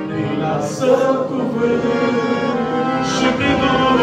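Romanian Christian song: a man singing over accordion-led instrumental accompaniment.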